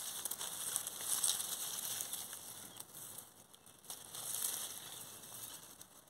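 Leaves and dry stems of a tomato plant rustling and crackling as hands push through them close to the microphone. It swells louder about a second in and again past four seconds.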